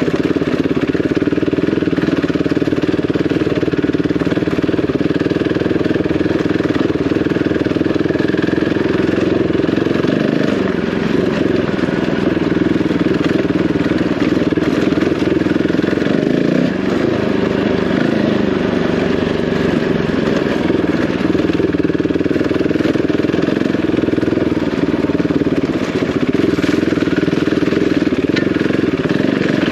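Single-cylinder dual-sport motorcycle engine running under way over a rough, lumpy green lane, its pitch rising and falling with the throttle.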